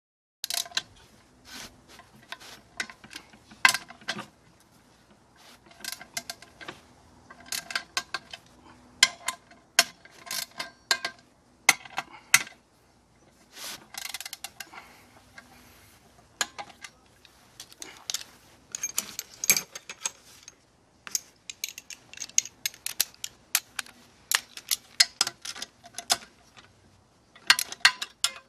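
Socket ratchet wrench clicking in quick runs with short pauses between them as it runs down the bolts of a manual transmission case.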